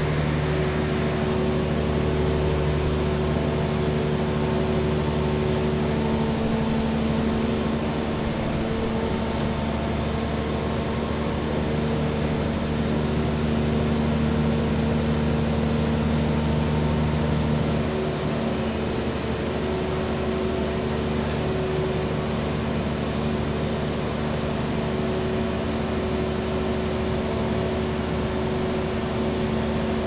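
Truck-mounted 52 m concrete pump running steadily while its boom unfolds: a constant engine and hydraulic hum with several steady tones. About eighteen seconds in, one of the lower tones drops out and the sound eases slightly.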